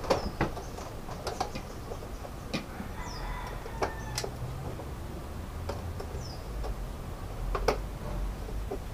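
Chickens clucking with a rooster crowing faintly about three seconds in, over scattered light clicks of spoons and bowls during a meal.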